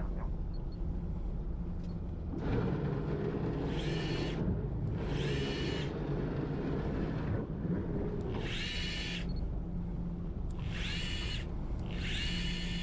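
A fishing boat's engine running with a steady low hum that grows louder about two and a half seconds in. Over it come five short, high whines, each under a second long.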